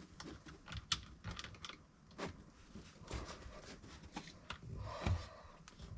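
Faint, irregular small clicks and taps of hands and tools working at a battery's terminals while the cables are connected.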